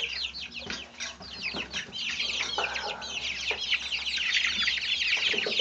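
A flock of Silkie chicks, about three weeks old, peeping continuously. Many short, high, falling peeps overlap into a dense chorus, with a few brief scuffing knocks.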